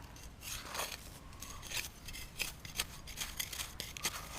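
Irregular metallic clicks and scrapes from dug-up ammunition-belt links and cartridges being handled and rubbed against one another, with one longer scrape about a second in.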